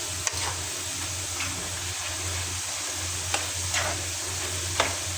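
French fries deep-frying in hot oil in a kadhai, a steady sizzle, with a few sharp clicks of a utensil against the pan as they are turned. The fries are just starting to go golden.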